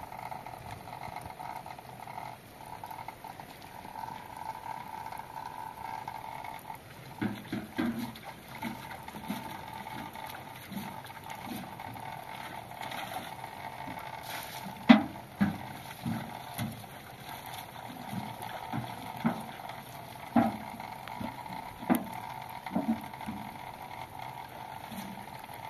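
A bucket being handled and emptied into a metal basin: irregular knocks and clunks with water sloshing, the sharpest knock about fifteen seconds in, over a steady background hum.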